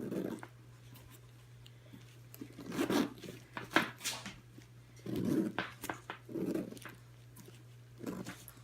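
Metal zippers on a coated-canvas handbag being pulled open and shut in short rasping strokes, worked one-handed, with muffled handling sounds in between.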